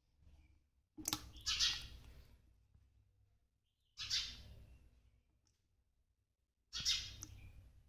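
Water splashing three times in a shallow basin as the fish thrash. Each splash starts suddenly and fades over about a second.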